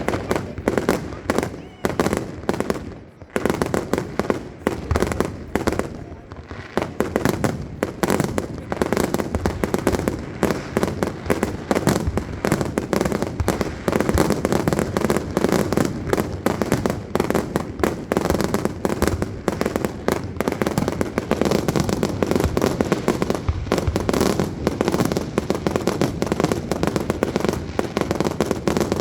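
Fireworks display: a rapid, dense barrage of bangs and crackles that becomes near-continuous from about seven seconds in.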